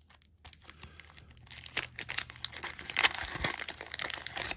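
A baseball card pack's paper wrapper being torn open and crinkled by hand, in irregular crackles that grow denser and louder after the first couple of seconds.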